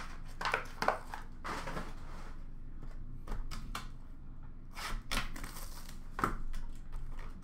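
Trading-card boxes and packs being handled: scattered light clicks, taps and rustles of cardboard and wrappers.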